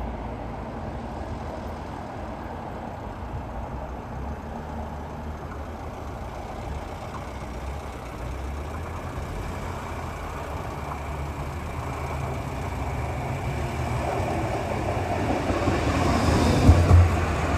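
Tram running on its track: a steady low rumble that grows louder over the last few seconds, with heavier low thumps near the end.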